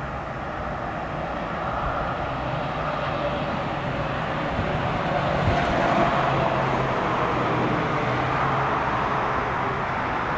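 Stadler GTW diesel light rail train running in the distance, a steady engine hum that grows somewhat louder toward the middle and then holds.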